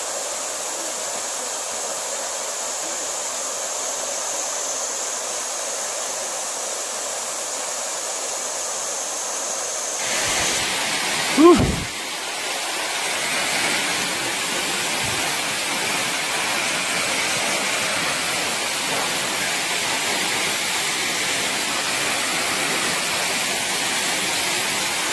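Waterfall pouring down a rock face, a steady rushing noise that becomes louder and fuller about ten seconds in. Shortly after that change, a brief loud sound slides down in pitch.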